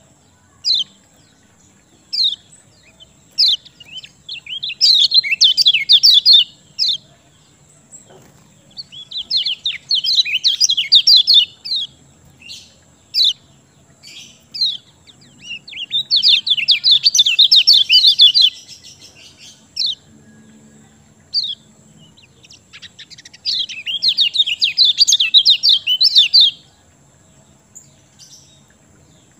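Kecial kuning songbird singing: four long bursts of fast, chattering high notes, each lasting two to three seconds, separated by short single chirps.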